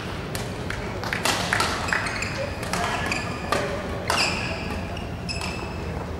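Court shoes squeaking on a badminton court floor, with a run of sharp knocks and taps, over a steady low hum and the echo of a large sports hall.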